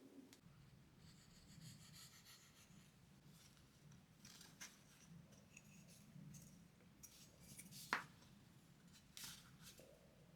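Near silence: faint room tone with light rustling and scraping, a few small clicks, and one sharp click about eight seconds in.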